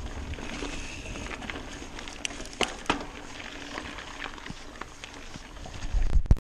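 Mountain bike rolling over a dirt singletrack: a steady rough crunch of tyres on the trail, with a few sharp knocks and rattles from the bike about two and a half to three seconds in. Near the end, a low rumble of wind buffeting the microphone, then the sound cuts off suddenly.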